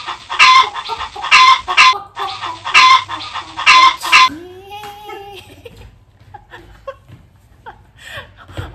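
Four loud, clucking squawks about a second apart, stopping suddenly after about four seconds, followed by softer voice-like sounds.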